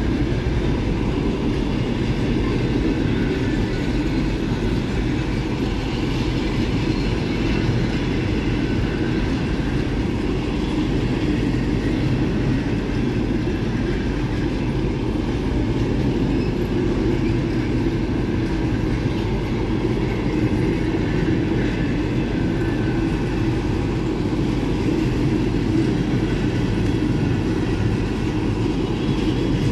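Passenger coaches of an arriving train rolling past, a steady rumble of wheels on the rails.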